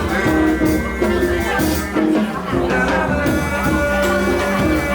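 Background pop music: a steady beat with held instrumental notes, in a gap between sung lines.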